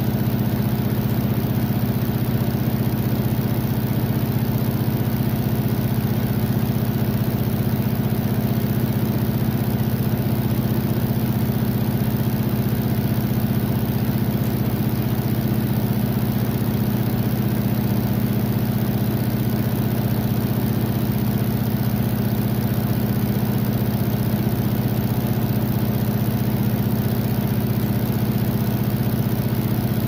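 Washing machine running: a steady low motor hum over an even wash of noise, unchanging in pitch and level.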